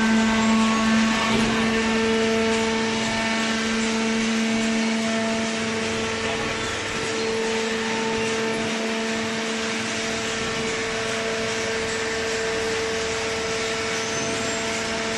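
Hydraulic cardboard baler running, its electric motor and hydraulic pump giving a steady hum with a constant whine over a mechanical hiss.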